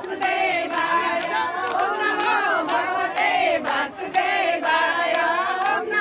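A group of women singing a Hindu devotional chant together, with their hands clapping along in rhythm.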